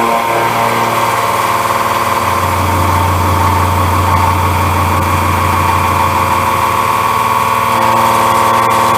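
Ceratizit MaxiMill A491 indexable face mill cutting A36 steel: a loud, steady, humming tone with many overtones. The low part of the tone strengthens about two seconds in, and the upper part shifts slightly near the end.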